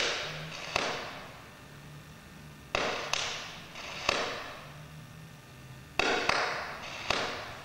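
Sharp knocks from a battery-driven sound sculpture striking its drum-topped bucket, each with a short rattling ring. They come irregularly, several in close pairs like a heartbeat, over a faint low hum.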